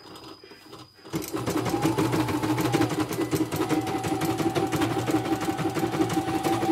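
A CNY portable computerized embroidery machine starts up about a second in and stitches steadily, with a fast, even needle rhythm over a steady high hum. It is resuming after stopping mid-design at a jump stitch with no broken thread.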